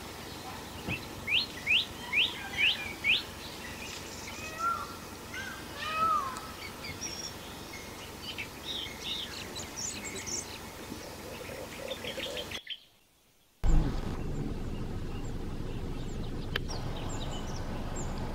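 Forest birds calling: a quick run of five sharp chirps about a second in, then scattered whistles and chirps over a steady background hiss. Roughly two-thirds of the way through the sound drops out for about a second, and a louder, lower background returns with a few more calls.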